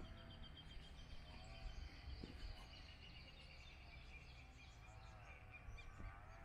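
Faint outdoor park ambience: birds calling with short rising-and-falling notes repeated every second or two, over a thin high trill that slowly drops in pitch and a low rumble of wind.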